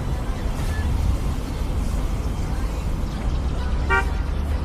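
Steady low rumble of wind and street traffic, with one short car horn beep near the end.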